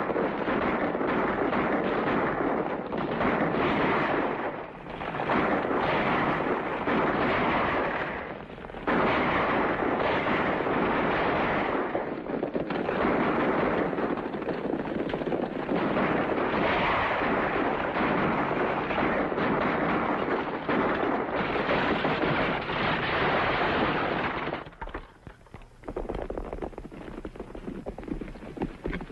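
Gunfire in a movie shootout: a loud, dense, continuous din with a few brief lulls, dropping away suddenly about 25 seconds in.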